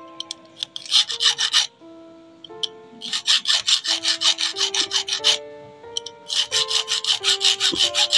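Small hand file rasping back and forth across the worn-flat metal teeth of an overlock sewing machine's feed dog, sharpening them, in three spells of quick short strokes. Background music plays underneath.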